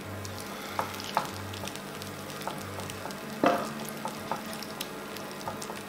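A wooden spoon scraping and stirring cooked mince and peas out of a non-stick frying pan into a baking dish, with a few light clicks of spoon against pan and dish. There is a louder knock about three and a half seconds in.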